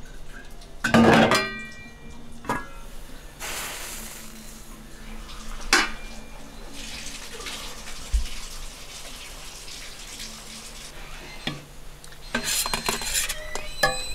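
Metal cookware clattering: a metal pot lid and a perforated skimmer knock and clank against the rice pot, the loudest clank about a second in ringing briefly, then scattered knocks and a busier run of scraping and clatter near the end as rice is scooped out.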